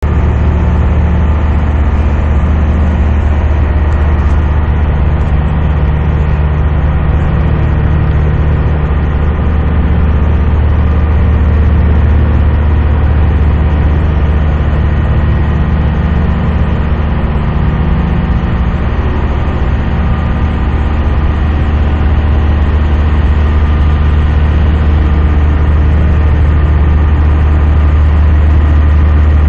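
Passenger ferry's engines running steadily, heard on board as a loud, constant low drone.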